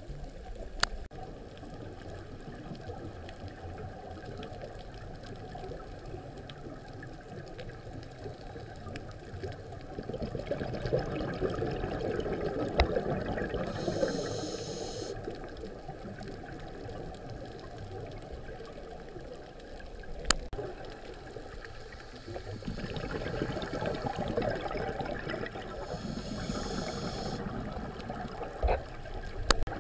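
Underwater noise of a scuba diver's breathing, heard through the camera housing: a steady rumble of water and bubbles that swells twice into louder bubbling, each swell with a brief hiss, plus a few single sharp clicks.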